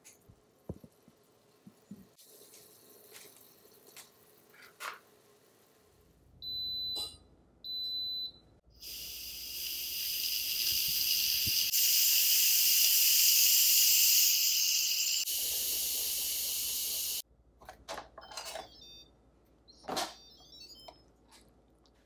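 Instant Pot beeping twice, then a loud hiss of steam jetting from the lid's pressure-release valve during a manual quick release. The hiss lasts about eight seconds and cuts off abruptly. Light clicks and handling knocks come before and after.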